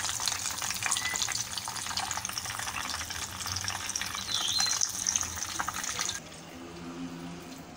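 Bread-cone samosa deep-frying in hot oil: a steady sizzle thick with fine crackling. The sizzle drops off suddenly about six seconds in, leaving a quieter hiss.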